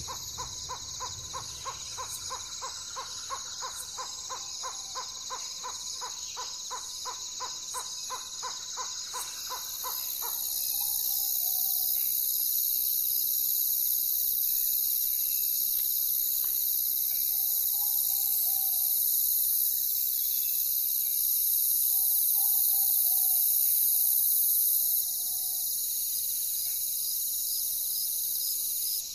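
Nature soundscape: a steady high-pitched chorus throughout, with a rapid run of tooting calls, about four a second, for the first ten seconds. After that the calls stop, a louder high hiss joins, and a few faint short calls sound.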